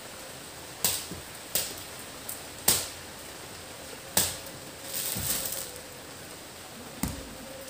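Sequined dupatta being unfolded and shaken out by hand: cloth rustling, with about six sharp flicks and snaps of the fabric and a longer rustle about five seconds in.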